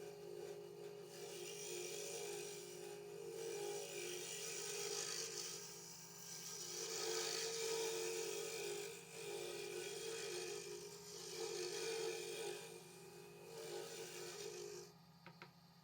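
Wood lathe running with a steady hum while a tool or abrasive rasps against the spinning soft willow pen blank, in swells every second or two. The rasping stops near the end, with a couple of faint clicks.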